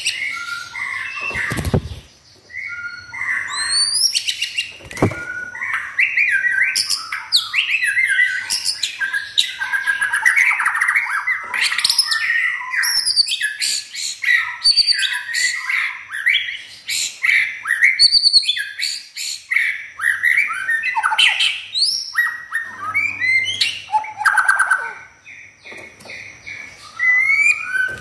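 White-rumped shama singing a long, varied song of fast whistles, chirps and sweeping glides, breaking off briefly near the end.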